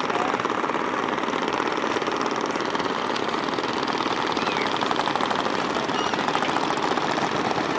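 Small boat engine running steadily with a fast, even putter, from motor sampans crossing the river.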